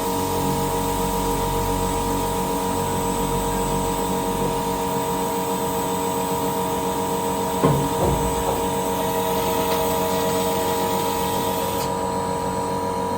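Cold-cut circular saw with a cermet-tipped blade cutting a solid stainless steel bar: a steady machine hum with several held tones, and one brief gliding chirp a little past halfway.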